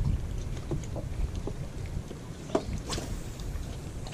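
Wind rumbling on the microphone outdoors, with scattered small clicks and a brief sharper rush about two and a half to three seconds in.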